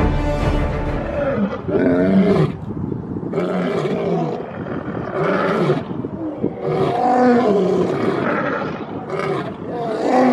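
A series of lion-like roars, each about a second long and bending up and down in pitch, repeating every second or so.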